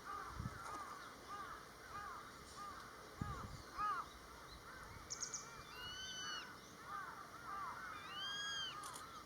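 Grey-faced buzzard giving its shrill 'pick-wee' call twice, a long arched whistle about six seconds in and again a little after eight seconds, over a busy run of many short, lower calls.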